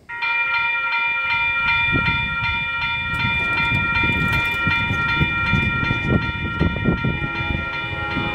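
Railroad grade-crossing warning bell starting suddenly and ringing in a fast, steady repeat, the signal that a train is approaching the crossing. About seven seconds in, lower held tones of the approaching train's horn join in.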